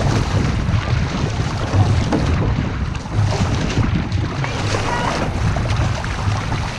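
Wind buffeting the microphone over the continuous rush and splash of water along an outrigger canoe's hull as the crew paddles, with splashes from the paddle strokes.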